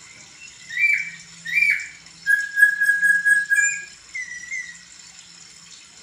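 Poksay (laughingthrush) singing: two short whistled notes that fall away at the end, then one long held whistle, then a few softer notes.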